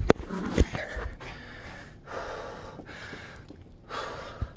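Two sharp knocks, then a man breathing hard: several long breaths close to the microphone.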